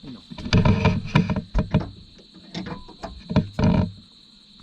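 A string of irregular knocks and clatters, loudest in the first half and a burst near the end, over a steady high chirring of night insects.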